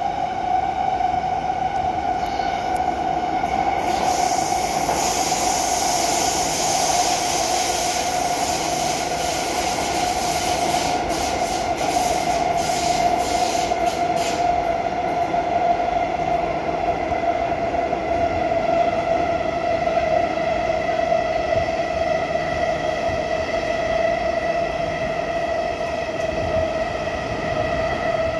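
SMRT C151B metro train running, heard from inside the carriage: a steady whine over the rumble of the wheels on the track. From about four to fourteen seconds in, a hiss and a few clicks sit on top of it.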